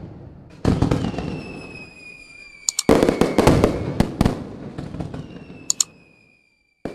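Fireworks sound effect: two booms that each fade away, with bursts of crackling pops and a high whistle sliding slowly down underneath.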